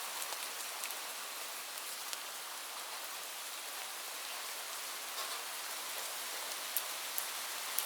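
Light rain falling steadily as an even hiss, with scattered individual drops ticking on a surface.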